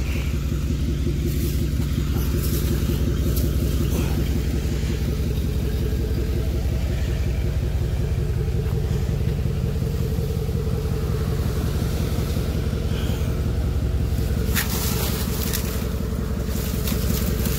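Steady low rumble of a pickup truck engine idling, with a few sharp clicks and knocks late on.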